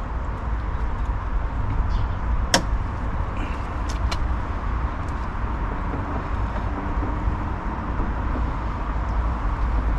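A steady low outdoor rumble, with a sharp click about two and a half seconds in and two lighter clicks around four seconds, as a T20 screw is worked out of a car door.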